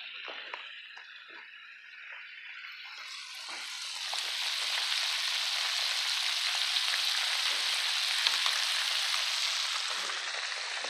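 Breaded crappie deep-frying in a pot of hot peanut oil, the oil bubbling and sizzling hard. The sizzle grows much louder about three seconds in and then holds steady, with a few light knocks in the first couple of seconds.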